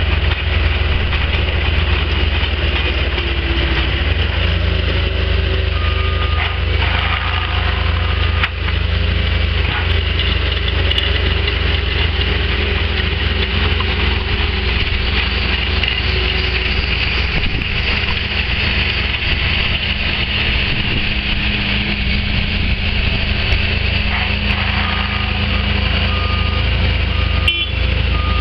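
Skid-steer loader with a cold planer milling attachment grinding up asphalt, its engine running hard under load. A reversing alarm beeps briefly, and again near the end as the machine backs up.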